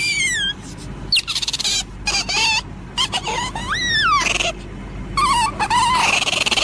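A string of loud animal calls: whistles and squeals that glide down and up in pitch, mixed with short raspy bursts.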